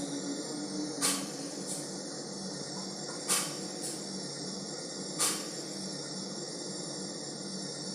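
Airliner jet engine running steadily during a ground warm-up: a constant high hiss and whine, with three short, louder rushes about two seconds apart.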